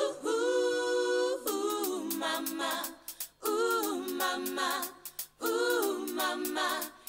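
Unaccompanied vocals in a song: the backing beat and bass drop out, leaving sung phrases with gliding pitch and short breaks between them.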